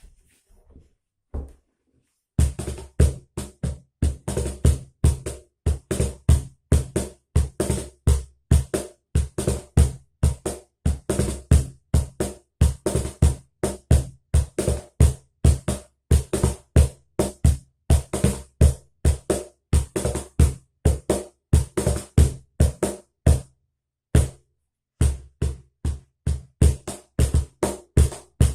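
Cajón played by hand in a steady groove, deep bass tones alternating with sharp slaps that buzz from the snare wires, about three to four strokes a second. The playing pauses briefly near the end, then starts again.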